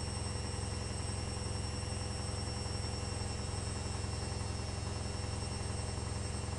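Electrolux EWS 1045 washing machine running mid-cycle: a steady, even low hum with a faint constant high-pitched whine over it.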